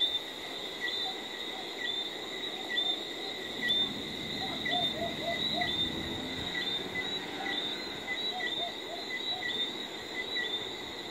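Night chorus of insects, most likely crickets: a steady high-pitched trill with a chirp repeating about once a second. A run of short, lower notes comes in around the middle.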